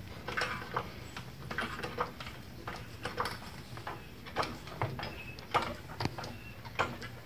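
Scattered light metal knocks and clicks, irregular and about one or two a second, as a steel radius arm is shifted and pushed against its frame mount and bushings.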